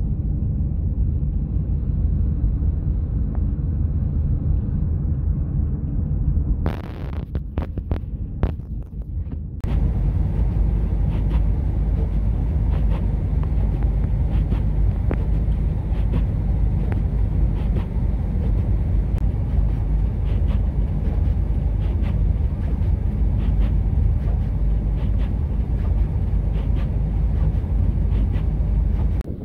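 Gusty snow-squall wind buffeting the microphone, a loud, steady low rumble. The sound changes abruptly twice in the first ten seconds, and from then on faint ticks run through it.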